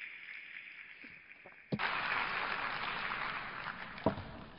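Audience applause that breaks out suddenly a little under two seconds in and fades away, with a single short knock near the end.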